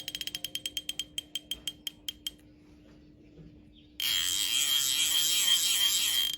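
Baitcasting reel's drag-alarm clicker ticking as the spool turns. The clicks come quickly, then slow down and stop over about two seconds. After a pause, a louder, fast continuous buzz of clicks runs for about two seconds as the spool spins fast, then cuts off suddenly.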